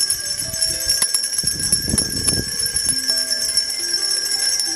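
Many hand-held bells rung together by a crowd, a continuous jangle of overlapping ringing tones. A brief burst of lower, denser sound comes about two seconds in.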